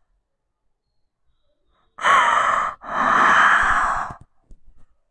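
A woman's two loud, heavy breaths close to the microphone, a short one about two seconds in and a longer one right after, as she breaks down crying mid-speech.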